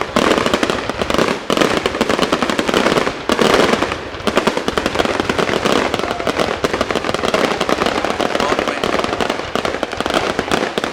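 Fireworks display: a dense, continuous crackle of rapid bangs, easing briefly a couple of times.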